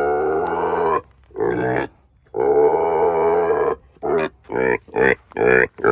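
Pigs squealing: long drawn-out squeals first, then from about four seconds in a quick run of short squeals, two or three a second.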